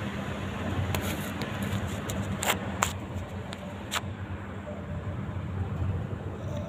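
A dachshund snoring in deep sleep: a low, steady snore, with a few sharp clicks between about one and four seconds in.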